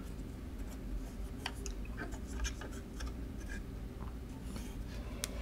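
Dry cotton swab rubbing along the metal guide rails of a Tandon TM50-1 floppy drive's head carriage: faint, irregular scratching and small clicks over a low steady hum.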